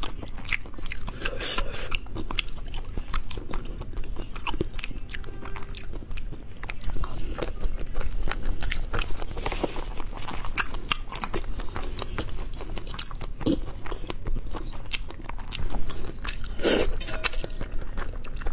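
Close-miked eating of sour-and-spicy glass noodles and soaked fried toppings: chewing and biting with many short wet clicks throughout, and a louder slurp of noodles near the end.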